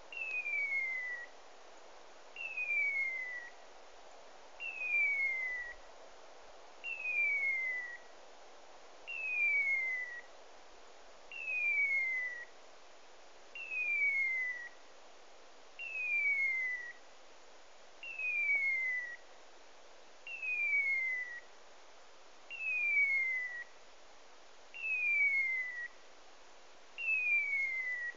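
Hunting dog's beeper collar sounding its locator signal: a clean electronic chirp falling in pitch, about a second long, repeated evenly every two seconds or so. This fast repeating call is typical of a beeper's point mode, telling the hunter that the Brittany spaniel is holding a point in cover.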